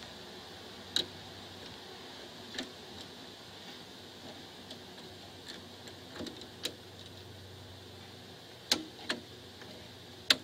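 Scattered sharp metallic clicks, the loudest near the end, as a large internal snap ring held in snap ring pliers taps and snaps against the steel bearing carrier while it is fitted to retain a Mercedes rear wheel hub bearing.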